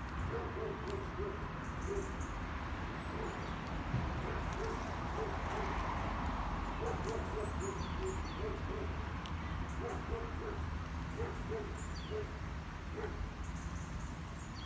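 A dove cooing: soft, low hooting notes repeated in short phrases over and over, over a steady low rumble of road traffic, with a few faint high bird chirps.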